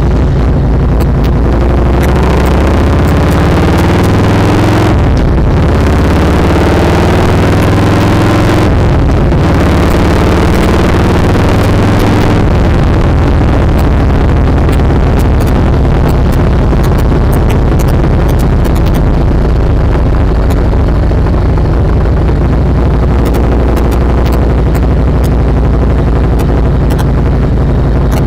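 Harley-Davidson touring motorcycle's V-twin engine under way, loud throughout. It rises in pitch twice in the first ten seconds, each rise ending in a short break as it shifts up, then holds a steady note while cruising.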